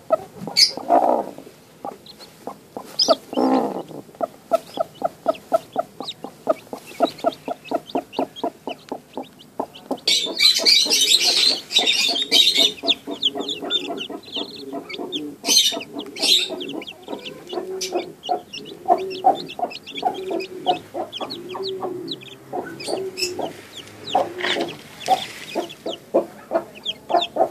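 A brooding chicken on a nest of eggs and newly hatched chicks clucks in a fast, steady run of about five clucks a second, later slowing to separate low clucks. Thin high chick peeps come in now and then.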